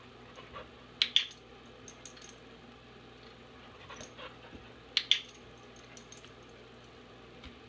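Training clicker clicked twice, about four seconds apart, each a quick double click, marking the dog's nose touches on a scented straw target. A few faint taps from the dog and the light plastic straw on the tile floor fall between.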